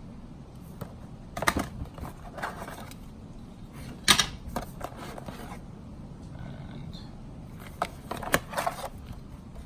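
Box contents and small hardware being handled during unboxing: scattered clicks and clacks with short stretches of rustling, the sharpest click about four seconds in and a quick cluster of clicks near the end.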